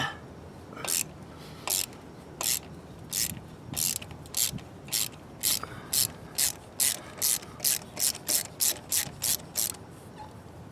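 Ratchet wrench clicking in short back-strokes while working a spark plug on a 2013 Lexus ES 300h's four-cylinder engine, about twenty strokes that come faster as it goes and stop shortly before the end.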